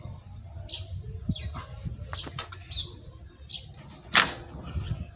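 Clutch nut on a Yamaha YBR Factor 125 being tightened by hand with a wrench: faint metal clicks and scrapes, with one sharp knock about four seconds in. Several short high chirps sound over it.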